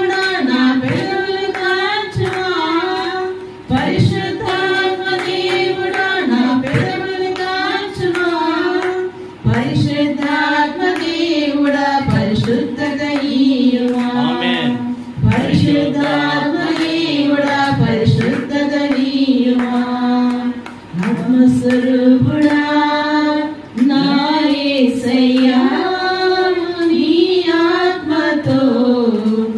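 Women's voices singing a slow devotional song together through handheld microphones, with long held notes and short pauses for breath every few seconds.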